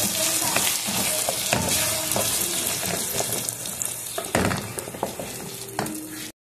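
Eggs and chopped sausage frying with a sizzle in a pot while a spoon stirs them, scraping and knocking against the pot. The sizzle slowly gets quieter.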